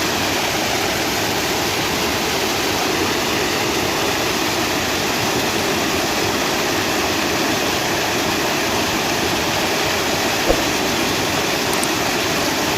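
Steady rush of flowing river water, with a single sharp click about ten seconds in.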